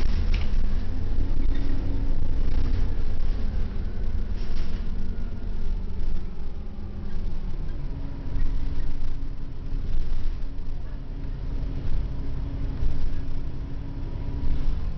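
Interior ride noise of a 1996 Orion V diesel transit bus in motion: a steady low engine and road rumble, with a fainter engine and drivetrain note that drifts up and down in pitch.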